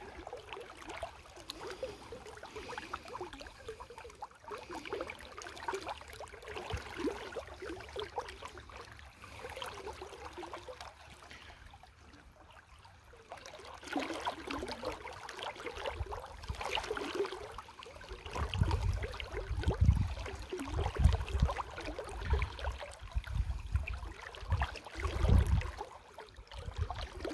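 Shallow river water trickling and gurgling steadily. From about two-thirds of the way in, low rumbling thumps buffet the microphone and are the loudest sound.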